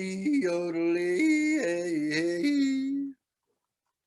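A man yodeling the closing refrain of a blues song, his voice flipping abruptly between low and high pitches. It stops about three seconds in.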